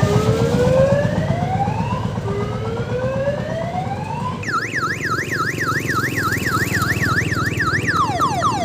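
Loud electronic siren on an odong-odong mini tourist train cycling through its tones: two slow rising wails, then from about halfway a fast up-and-down warble, about three a second, and near the end quick falling sweeps. The train's diesel engine rumbles underneath.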